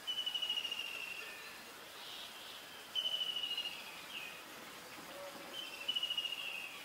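A high, rapidly pulsed trilling call, three times about three seconds apart, each about a second long and falling slightly in pitch, over faint outdoor background noise.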